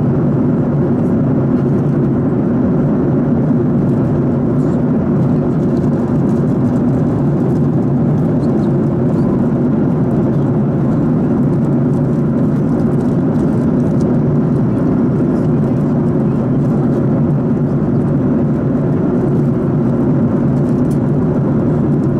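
Steady cabin noise inside a Boeing 737 MAX 8 airliner in flight: an even, low rush of airflow and engine drone with no change in level.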